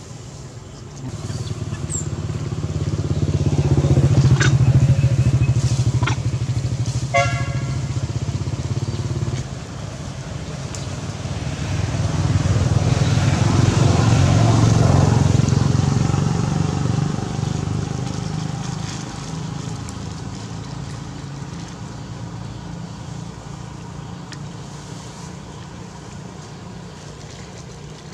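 Engine noise of passing motor vehicles, swelling and fading twice, loudest about four seconds in and again around fourteen seconds, with a brief horn-like toot about seven seconds in.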